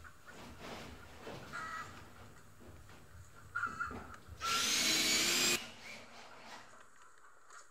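Cordless drill driving a screw into the coop's corner trim in one run of about a second, its motor whine rising slightly in pitch as it spins up. A chicken clucks faintly a couple of times before it.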